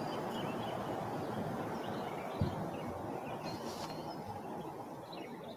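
Outdoor ambience: a steady noise with birds chirping over it, and one short low thump about two and a half seconds in.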